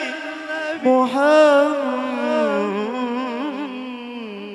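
A solo voice singing a long, drawn-out Arabic devotional phrase in praise of the Prophet, its pitch wavering in ornamented turns and drifting lower. It fades gradually, with no drumming under it.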